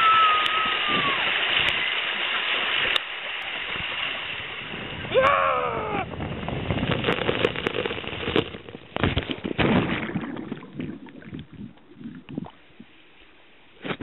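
Water rushing and splashing hard down a water slide during the ride, dying away after about ten seconds to scattered small splashes and drips. A short rising-and-falling cry comes about five seconds in.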